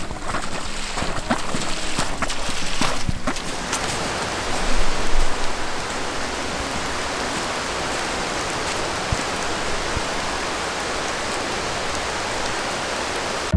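Steady rushing of water pouring into a partly frozen pond, with a few short crunches or knocks in the first few seconds.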